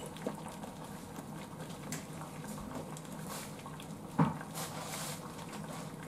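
A saucepan of water boiling steadily, with food pouches heating in it. A single knock sounds about four seconds in.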